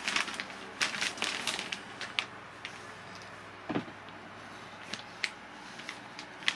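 Clear plastic bag crinkling and rustling as the foam wing inside it is handled, busiest in the first two seconds and then thinning to scattered crackles. A single soft knock about halfway through.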